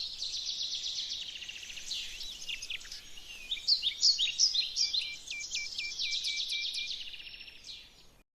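Several small birds chirping and singing at once in quick, high, overlapping notes, with a run of repeated hooked calls later on, fading out near the end.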